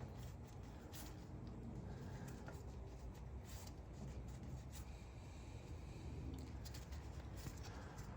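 Faint handling noises: light scraping and scattered small clicks of hands and fingers working at a car's plastic radiator drain plug.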